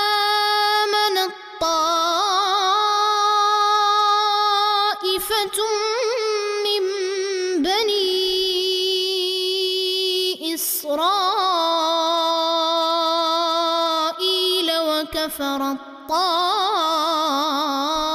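A man chanting Quran recitation in a slow, melodic tajweed style. He holds long notes with ornamented, wavering turns and breaks them with short breath pauses every few seconds.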